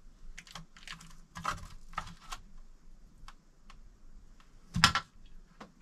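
Fork scraping and tapping as rice is served from a foil tray onto a plate: a run of light clicks and scrapes, a few faint ticks, then one louder clack near the end.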